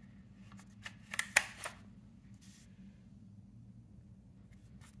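Steyr M95 straight-pull bolt being worked, metal sliding on metal with a quick run of clicks and one sharp clack about a second and a half in as the bolt goes home. A couple of light clicks follow near the end.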